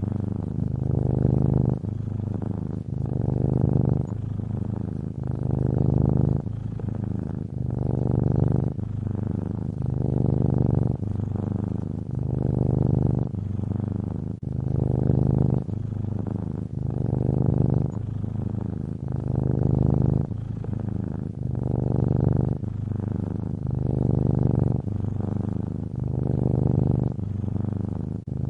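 Domestic cat purring steadily up close, a low buzzing that swells and eases with each breath about every two seconds.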